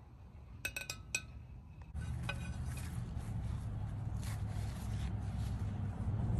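Metal tandoor skewers clinking, with short ringing, as chicken tikka pieces are pushed off a skewer onto a plate, a few clinks about a second in and more after two seconds. A steady low rumble comes in about two seconds in and runs under them.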